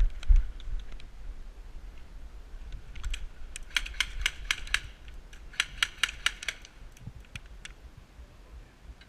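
Airsoft gunfire: two bursts of rapid sharp clicks, one about three seconds in and another around five and a half seconds.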